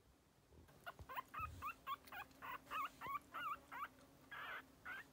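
Newborn puppy squeaking and whimpering while held in a hand: a rapid run of short, high, wavering squeaks, about three a second, starting about a second in.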